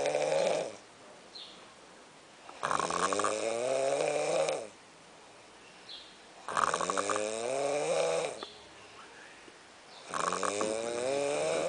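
A man snoring in his sleep. Each snore lasts about two seconds and rises in pitch, and they come steadily about every four seconds.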